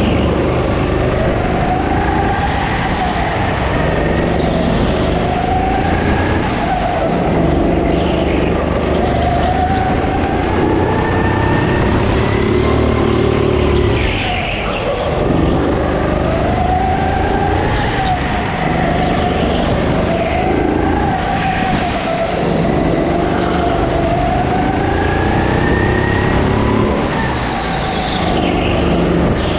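Go-kart engine heard from the driver's seat, revving up and easing off again and again as the kart laps the track, its pitch rising and falling every couple of seconds.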